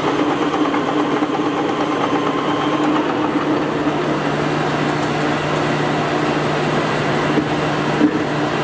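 Polamco gear-head engine lathe running with its spindle and chuck turning: a steady mechanical hum of the headstock gearing and motor. A brief knock about eight seconds in.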